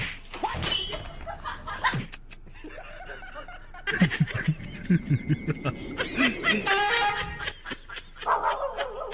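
A person laughing in a run of short bursts, starting about four seconds in.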